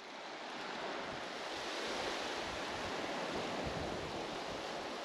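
Steady rushing noise of surf and wind along the shore. It swells in over the first second or so, then holds even.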